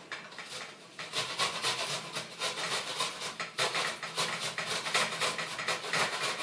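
Fresh ginger being grated on a metal box grater: quick, even rasping strokes, about four a second, starting about a second in.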